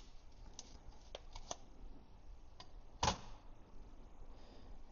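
Faint clicks and taps of a silver Peace dollar being handled, taken from its plastic holder and set on a small digital scale, with one louder tap about three seconds in.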